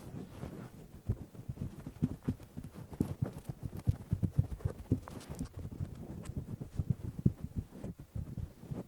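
Fingers scratching a towel-covered microphone: rapid, irregular rubbing strokes, mostly deep in pitch, close to the mic.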